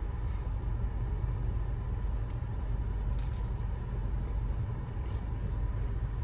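Steady low hum of a car idling, heard inside the closed cabin, with a few faint soft sounds of a tortilla wrap being bitten and chewed.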